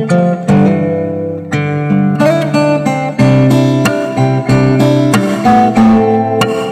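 Background music: an instrumental played on acoustic guitar, with plucked and strummed notes.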